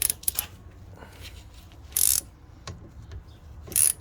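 Hand ratchet wrench clicking in three short bursts, near the start, about two seconds in and near the end, as a brake caliper bolt is worked. The caliper slide pin is spinning with the bolt, so the bolt is not yet locking down.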